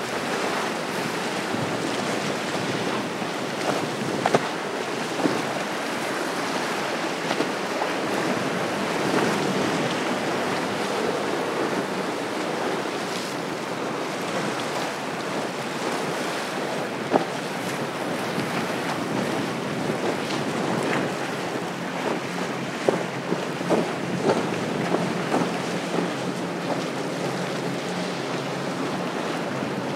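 Wind buffeting the microphone over the rush of water as fast center-console boats plane past on outboard engines, throwing wakes. There are a few sharp knocks, and a faint steady engine hum comes in about two-thirds of the way through.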